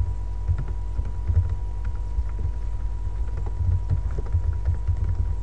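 Computer keyboard being typed on, irregular keystrokes with low thumps, over a steady low electrical hum and a faint steady tone.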